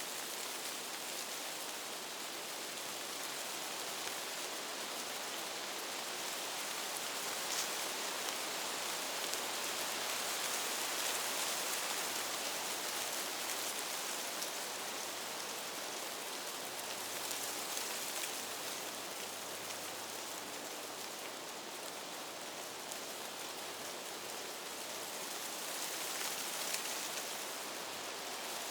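Whispering sound effect: many overlapping whispers blended into a steady hiss with no words made out, swelling and easing slowly.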